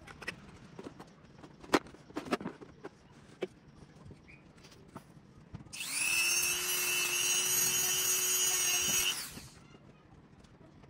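A few light taps and clicks, then a rotary engraving tool (mini drill) runs at a steady speed with a whine for about three and a half seconds and stops.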